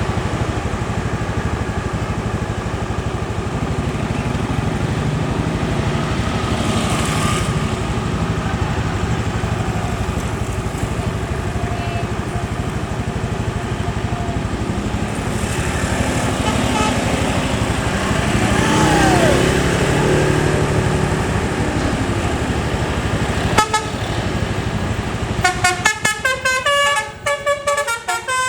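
Scania K410 bus running along the road with steady engine and road noise; near the end its basuri telolet horn begins playing a fast melody of short, stepped tones.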